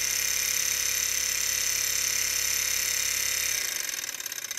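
Miniature hot-air Stirling engine running fast and driving a small belt-driven generator: a steady mechanical whir with a high whine. About three and a half seconds in, the whir drops away to a quieter pulsing as the engine slows under the generator's electrical load.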